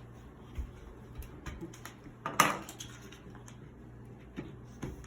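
Handling noise from a cordless vacuum's charging adapter being swapped: small hard clicks and knocks, with one louder clack about halfway through, over a faint steady hum.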